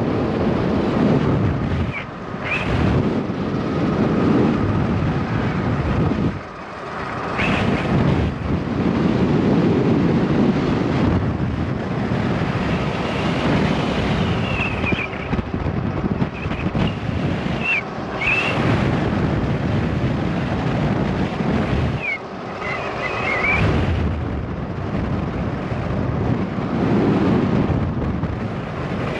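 Wind buffeting the camera microphone while riding an e-bike, a steady rumbling rush that eases briefly twice. Short high chirps cut through it several times.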